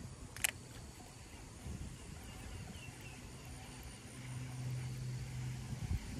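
A baitcasting reel clicks once, sharply, about half a second in as it is engaged after a cast. Under it runs a faint, steady low hum that grows louder between about four and six seconds in.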